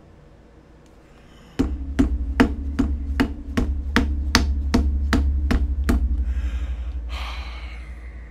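About a dozen sharp knocks in quick, even succession, roughly three a second, over a low hum that starts with them and fades slowly once they stop. A short rustling noise follows near the end.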